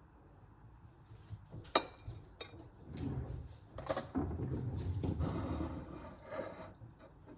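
A few sharp knocks and clinks, the loudest about two seconds in, over low rumbling handling noise.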